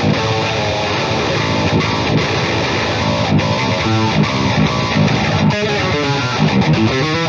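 Strandberg Boden 7 True Temperament seven-string electric guitar playing a heavy riff through a distorted rhythm tone.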